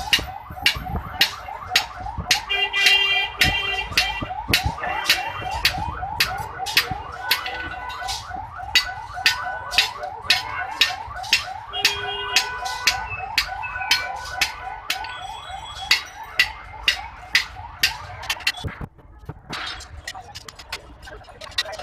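Steady hammer blows on hot iron at the anvil, about two a second, many with a short metallic ring. Under the strikes runs a rapidly repeating rising whine that stops about nineteen seconds in.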